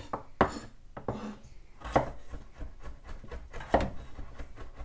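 Kitchen knives chopping on a wooden cutting board, cutting potatoes into pieces and mincing garlic: irregular knife strikes with a few louder knocks among many small taps.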